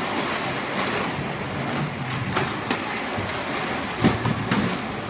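Hard plastic wheels of a child's ride-on toy quad bike rolling over concrete, a steady rumble with a few short knocks.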